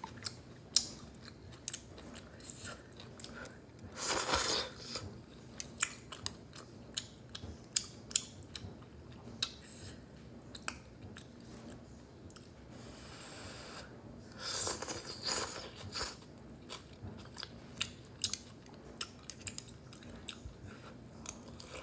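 Close-miked eating of udon noodle soup: chewing and mouth clicks, with two longer noisy bursts, one about four seconds in and one around fifteen seconds.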